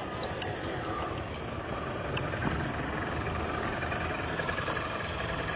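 Motor scooter's small engine running steadily as the scooter rides up and comes to a stop.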